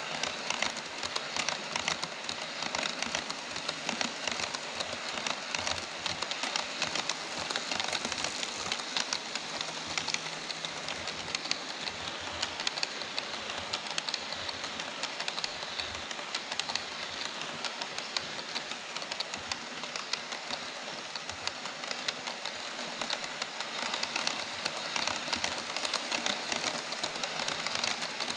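HO-scale model trains running on KATO Unitrack plastic-roadbed track: a steady rapid clatter of many small wheels clicking along the rails as a freight train of tank cars and container flat cars rolls by.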